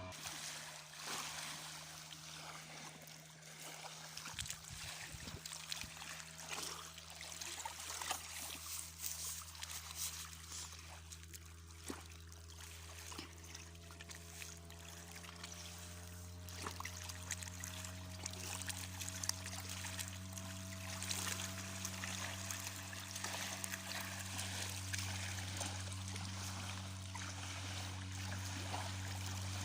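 Sea Pro 5 hp outboard motor running at a steady pitch, with water rushing and splashing along the boat's hull.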